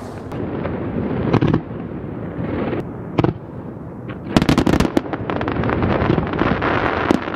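Large aerial fireworks shells bursting close overhead: single sharp booms about a second and a half and three seconds in, then a rapid run of crackling bangs a little after four seconds, over a continuous deep rumble that makes the ground shake.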